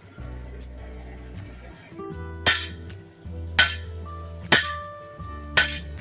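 Blacksmith's hammer striking metal on an anvil: four sharp ringing blows about a second apart, starting midway. Background music plays throughout.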